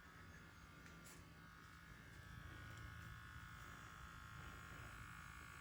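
Faint, steady buzzing of the small electric motors driving two animated HO scale model oil rigs, growing a little louder about two seconds in.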